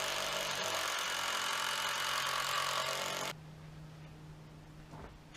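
Cordless power drill running under load, driving a fastener into a wooden pallet, cutting off abruptly a little over three seconds in; a faint low steady hum follows.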